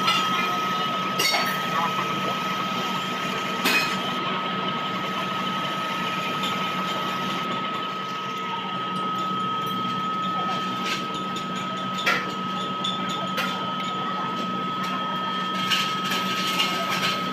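Large metal lathe running with a steady hum and a constant high whine while sandpaper is held against a spinning metal sleeve, with a few sharp clicks along the way.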